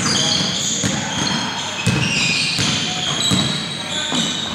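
Basketball bouncing on a hardwood court, a few separate thuds, over a busy gym background of voices and many short high-pitched squeaks.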